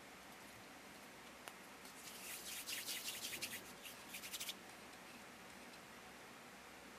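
A palm rolling a small lump of toy dough back and forth on a plastic mat: a quick run of soft rubbing, rustling strokes about two seconds long, starting about two seconds in.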